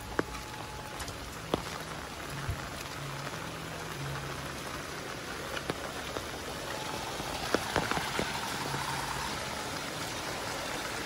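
Steady rain falling, with a few sharp drops tapping close by now and then.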